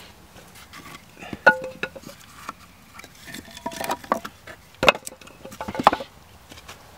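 Dry wooden sticks knocking and clacking against each other as they are handled, a scattered run of sharp knocks, some with a short hollow ring; the loudest come about one and a half, five and six seconds in.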